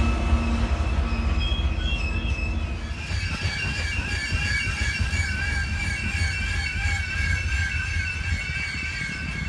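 A freight train of loaded coal hopper cars rolling past with a steady low rumble. From about three seconds in, the wheels keep up a high, wavering squeal.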